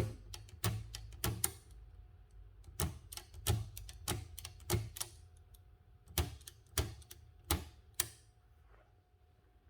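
Seidel & Naumann Erika folding typewriter's mechanism clicking as its small levers are worked by hand: about a dozen sharp clicks at uneven intervals, stopping about eight seconds in.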